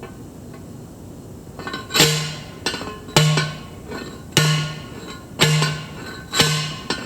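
Hand post driver pounding a steel T-post into the ground: five heavy strikes about a second apart, starting about two seconds in, each ringing out metallically.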